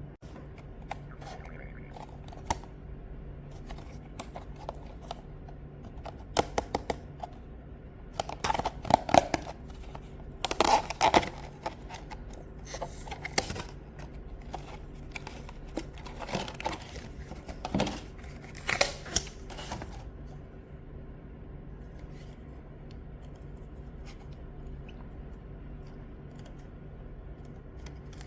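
Close handling noises: scattered clicks, taps and rustling of small objects being handled, heaviest through the middle, over a steady low electrical hum.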